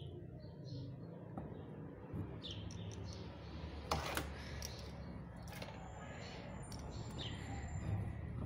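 Low steady background hum with a couple of sharp clicks, about four and five and a half seconds in, and faint bird chirps.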